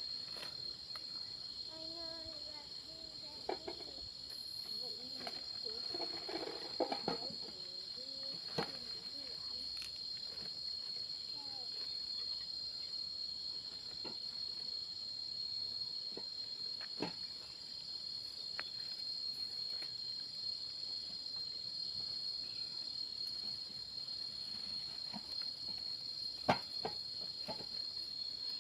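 A steady, high-pitched insect chorus trilling without a break, with a few sharp knocks, the loudest near the end.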